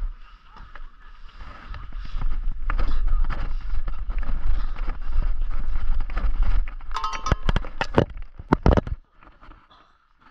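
Rope climb heard from a body-worn camera: a low rumble and rubbing noise on the microphone as the climber hauls up the rope. Then, about seven seconds in, the cowbell at the top of the rope is struck, ringing once and followed by several sharp clanks over the next two seconds.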